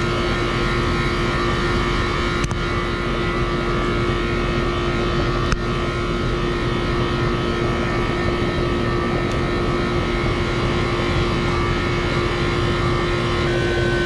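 A 4-ton R-410A air-conditioning condensing unit running, its compressor and condenser fan giving a steady hum with one constant tone. Two light clicks, a couple of seconds in and again about three seconds later.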